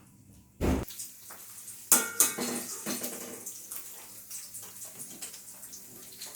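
Kitchen pots and utensils being handled: a dull knock, then a sharp metal clink that rings briefly, followed by scattered lighter clatter.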